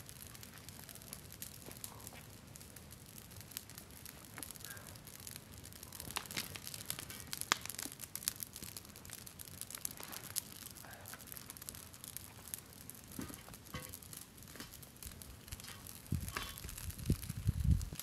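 Outdoor wood fire of dry branches burning, crackling and popping with scattered sharp snaps. A few low thumps come near the end.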